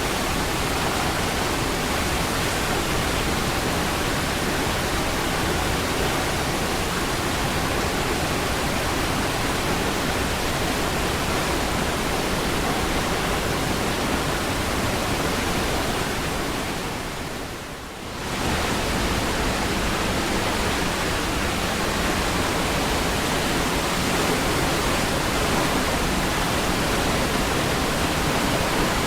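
Niagara Falls' water pouring and rushing in a steady, dense roar. About two-thirds of the way through it fades down briefly and then comes back to full level.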